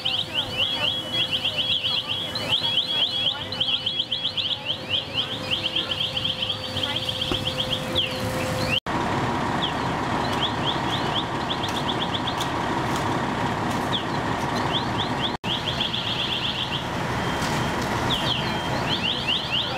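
Fire-scene ambience: a steady engine drone under repeated trains of rapid, high-pitched chirping. The sound breaks off briefly twice, about 9 and 15 seconds in.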